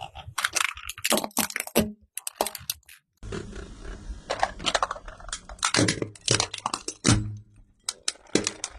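Small battery-powered handheld plastic fans being crushed under a car tyre, their casings and blades cracking and crunching in clusters of sharp snaps.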